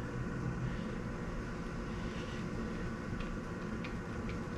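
Steady low mechanical hum, with a few faint light ticks in the second half.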